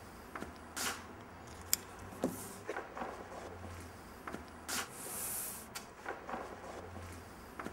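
Hands handling a sheet of material and pressing and rubbing it onto a large wooden board: scattered small taps, clicks and rustles, with a longer hissing rub about five seconds in, over a steady low hum.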